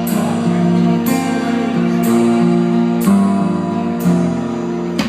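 Instrumental passage of a pop-rock song, without singing: sustained strummed guitar chords with a sharp percussion hit about once a second.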